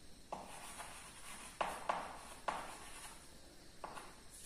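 Chalk writing on a blackboard: a handful of short, faint scratching strokes spread irregularly.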